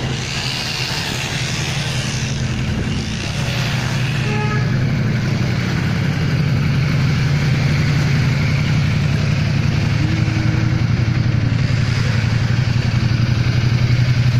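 A large motorcycle engine idling with an even, fast pulsing beat, getting gradually louder.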